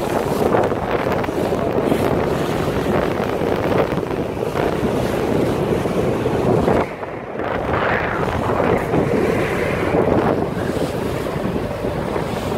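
Heavy wind buffeting the microphone over the rush and slap of choppy water against a moving motorboat's hull, with a brief lull about seven seconds in.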